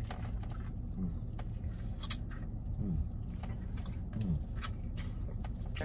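A person biting into and chewing a piece of hot fried chicken, with scattered wet mouth clicks and a few short hummed "mm" sounds.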